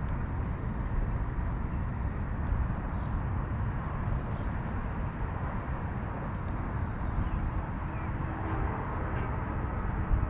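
Wind buffeting the microphone in a steady, uneven low rumble, with a few faint high bird chirps about three seconds in and again near seven seconds.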